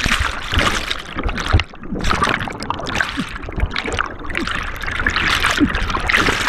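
Churning whitewater heard through a helmet-mounted GoPro dragged under the surface in a rapid: a dense rush of bubbling, gurgling water with short falling gurgles and scattered low thumps.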